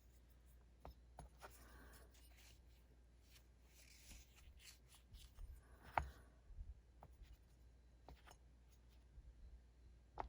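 Faint handling of small disassembled pocket-knife parts during cleaning: scattered light clicks and soft rubbing, with one sharper click about six seconds in.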